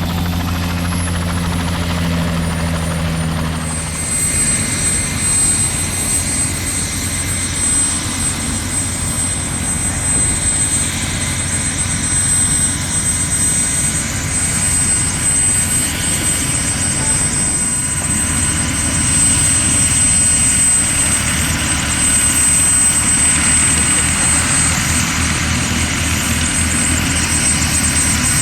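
Aircraft engine running steadily and loudly. About four seconds in, the low steady tones give way to a broader rushing drone with a steady high whine.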